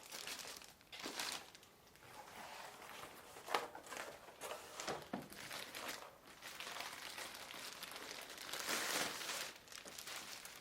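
Cardboard and plastic packaging being handled and crinkled, with scattered sharp clicks and taps and a longer stretch of rustling near the end.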